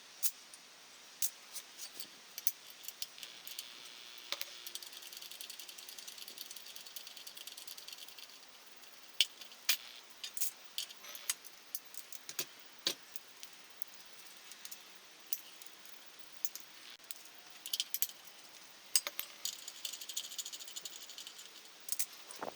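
Metal clinks and rattles from tools and small metal parts being handled, with scattered sharp clicks and stretches of light metallic jingling.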